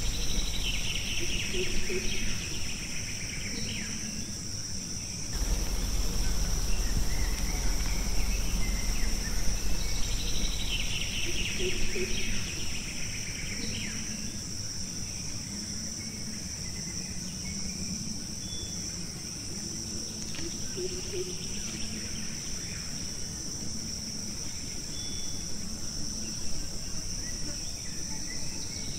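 Forest ambience: a steady high-pitched insect drone throughout, with bird calls coming and going every several seconds. A low rumble comes in about five seconds in and fades after about six seconds.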